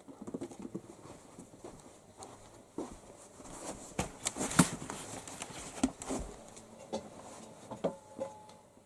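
Scattered light thumps, taps and rustles of two cats scampering and play-fighting on a rug, the loudest taps about halfway through.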